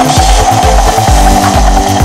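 Background music with a steady beat, mixed with the Dickie Toys rescue helicopter's electronic rotor sound effect, a steady buzzing chop.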